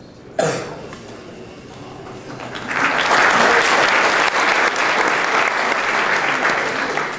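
Audience applause that swells about two and a half seconds in, holds steady, and fades near the end. Just before it, about half a second in, a short sudden sound falls in pitch.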